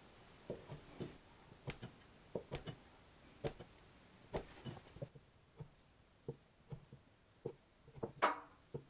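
A broad steel noodle knife chopping down through folded udon dough onto a wooden cutting board. Each cut gives a soft knock, a bit more than one a second, in a steady rhythm.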